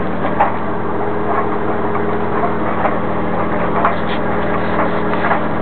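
A steady hum over a constant rushing noise, with scattered light knocks and creaks of wood, a few a second apart, as a timber garden shed is moved about in.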